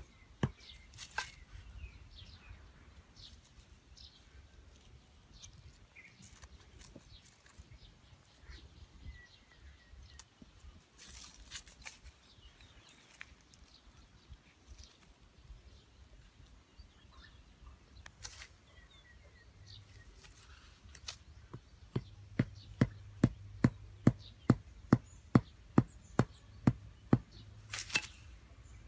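Sharp knocks of small wooden stakes being pounded into dry ground, a regular run of about two strikes a second starting about three-quarters of the way through, after a stretch of quiet rustling in dry leaves and scattered light taps. Faint bird chirps.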